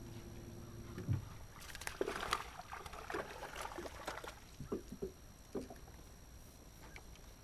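Electric trolling motor humming, cutting off about a second in. Then a small largemouth bass splashes and thrashes at the surface as it is reeled in and swung aboard, with a few knocks against the boat.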